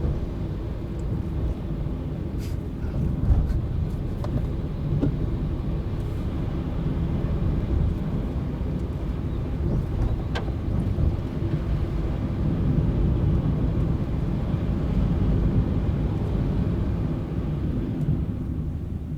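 Car engine and tyre noise heard from inside a moving car: a steady low rumble, with a few faint ticks.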